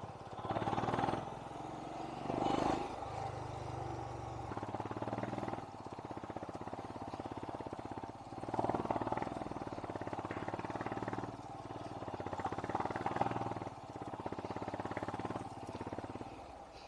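Motorcycle engine running on a steep, winding mountain descent, swelling in loudness several times in short bursts.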